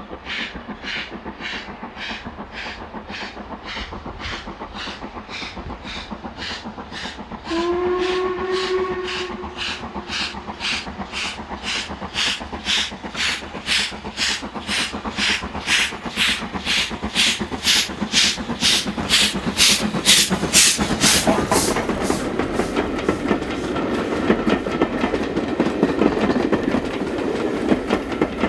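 Steam locomotive working hard with a train, its exhaust beats at about two a second growing louder as it approaches. About eight seconds in it sounds a whistle for about two seconds. Near the end it passes close, and the beats mix with the coaches' wheels clattering over the rails.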